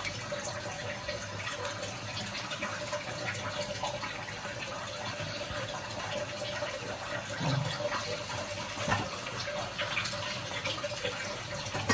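Broccoli and potato curry cooking in a pan with a little water, a steady sizzle and bubble with fine crackles throughout.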